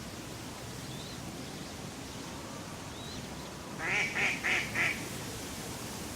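A duck quacking four times in quick succession about four seconds in, over a steady outdoor background noise with a few faint bird chirps.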